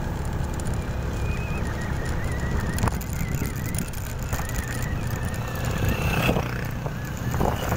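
Motorcycle engine running steadily while riding along a road, heard as a constant low rumble.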